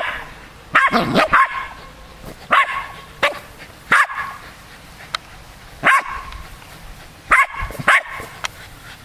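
West Highland White Terriers giving short, sharp play barks while chasing a ball. There are about ten barks in bunches: a quick run of three about a second in, then singles and pairs spread through the rest.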